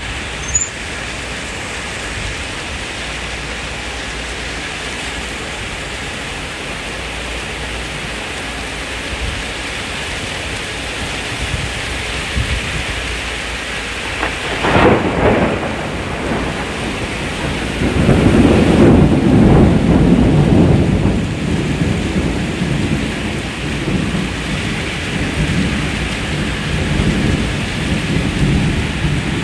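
Steady heavy rain, with a thunderclap about halfway through followed a few seconds later by a long, loud rolling rumble of thunder that slowly dies away.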